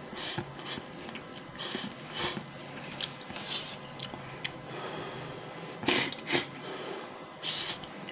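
A person slurping and chewing instant noodles close to the microphone: short, noisy slurps every second or so, the loudest a little under six and seven and a half seconds in.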